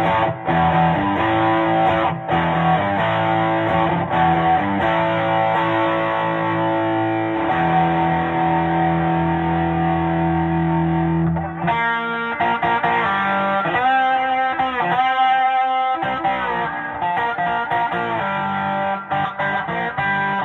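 Les Paul electric guitar played loud through a handbuilt tweed-style tube combo amp (two 6L6 power tubes, 5Y3 rectifier, 12AX7 preamp tubes), overdriven by a pedal. Sustained overdriven chords ring out first, one held for several seconds, then from about halfway single-note lead lines with string bends.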